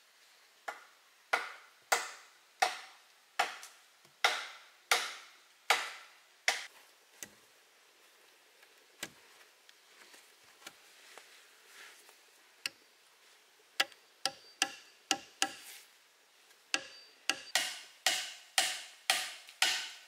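A hand tool chopping wood in sharp, evenly spaced blows, about one and a half a second. After a few seconds of only faint knocks, a quicker run of chopping strikes follows near the end.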